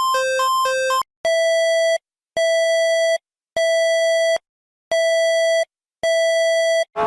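Electronic emergency alert alarm tones. A quick alternating low–high two-tone warble gives way, about a second in, to five long, evenly spaced beeps on a single tone, and a rising siren tone starts right at the end.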